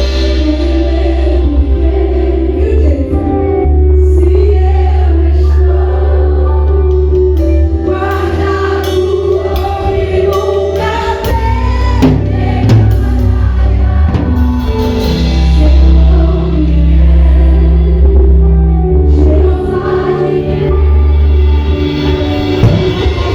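Music with choral singing over a heavy, sustained bass line.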